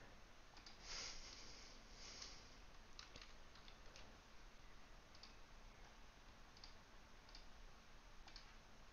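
Faint computer mouse clicks and keyboard keystrokes: scattered single clicks about once a second, with a slightly louder cluster of noise near 1 s and again near 2 s.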